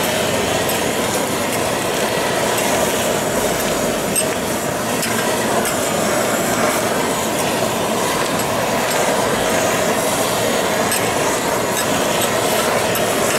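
Handheld gas blowtorch flame hissing steadily over diced bluefin tuna, with the fish sizzling and crackling on a hot griddle.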